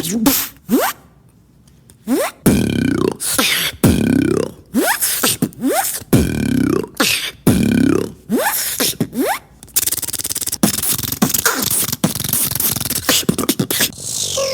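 A beatboxer imitating sound effects with the mouth: repeated pitched vocal calls that bend down in pitch, then from about ten seconds in a fast, dense clicking rattle.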